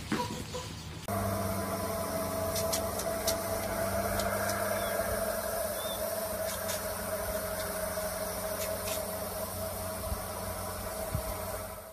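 Lawn sprinkler spraying a jet of water: a steady hiss under a steady low hum, with a few faint irregular ticks.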